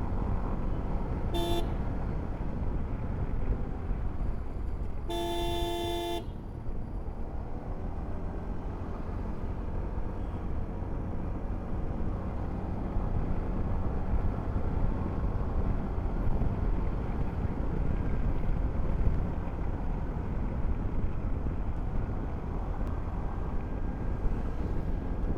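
Hero Xoom 160 maxi scooter ridden at speed, picking up from about 50 to 60–70 km/h: steady engine and wind rumble picked up by a mic under the rider's chin. A vehicle horn toots briefly about a second and a half in and again, longer and louder, about five seconds in.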